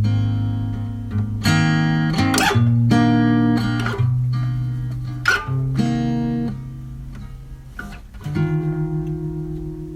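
Background music: an acoustic guitar strummed in sustained chords that change about once a second, with a long held chord near the end.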